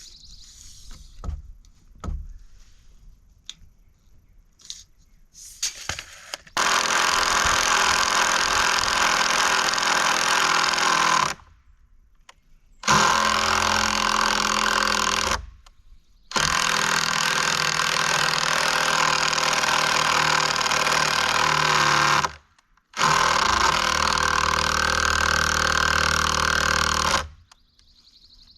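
Cordless impact driver hammering a bolt into a wooden board in four long runs with short pauses between, the fastener going in hard. A few light knocks in the first seconds before it starts.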